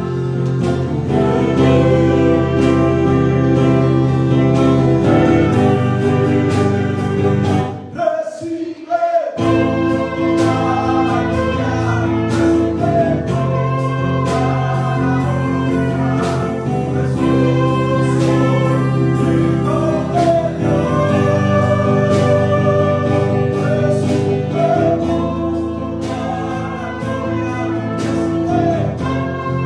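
A man singing a Spanish-language Christian worship song while playing an electric guitar. The low end drops out briefly about eight seconds in, then the song carries on.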